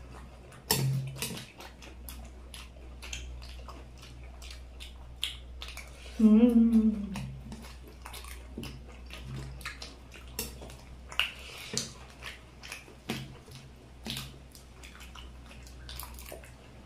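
Eating chaat with spoons: many short sharp clicks of spoon on dish and chewing. About six seconds in, one eater gives a short, loud, wavering hum, over a steady low hum underneath.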